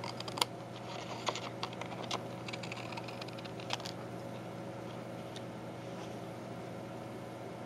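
Scissors snipping thick paper paint sample cards: a run of sharp, crisp clicks and short crackly snips over the first four seconds, thinning out after that.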